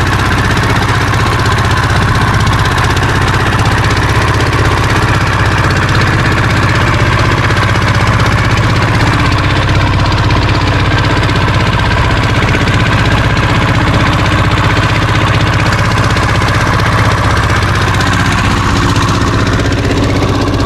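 Wooden fishing boat's engine running steadily under way, a loud, even, deep drone.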